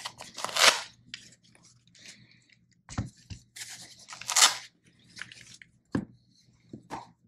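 Handling noise as a baitcasting reel is unwrapped: two bursts of rustling and crinkling from its wrapping and cover, and several light knocks and clicks as the reel is turned in the hands.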